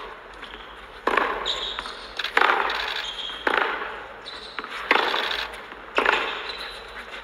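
Tennis ball being struck by rackets and bouncing on a hard court, about five sharp hits roughly a second apart, each echoing in the empty stadium.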